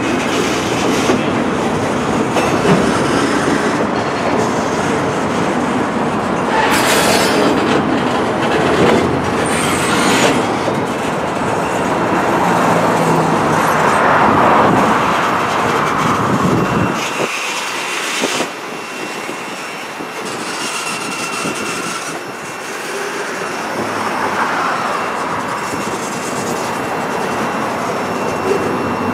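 Loaded flatcars of a freight train rolling past on jointed track: a steady rumble of wheels with clickety-clack and some wheel squeal in the middle. About two-thirds of the way through, the deep rumble drops away and the sound thins out.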